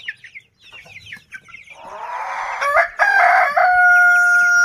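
Rooster crowing: a rasping start about two seconds in, then one long, loud, held note that runs on past the end. Light high chirping of other birds sounds behind it.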